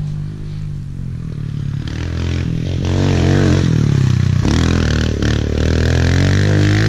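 Kawasaki KLX pit bike's air-cooled four-stroke single-cylinder engine revving as the bike rides up past close by, its pitch rising and dropping again and again with the throttle. It grows louder about three seconds in and stays loud.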